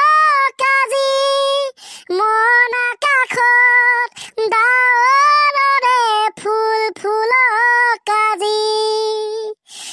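A high, child-like voice singing a slow song unaccompanied, in long held notes with short breaks between phrases.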